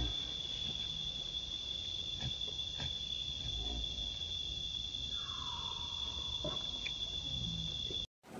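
Insects droning steadily on one high note, with a second, lower tone sliding down and holding for about a second past the middle. The drone cuts off just before the end.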